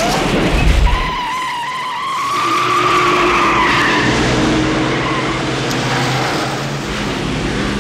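Car-chase sound effects: car tyres squealing in a long, wavering screech over an engine running hard. A heavy low rumble comes in the first second.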